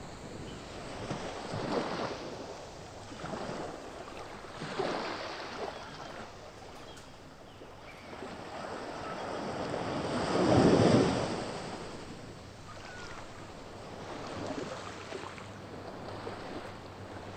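Ocean waves rolling in and breaking on the shore. Several rising and falling surges, the loudest about two-thirds of the way through.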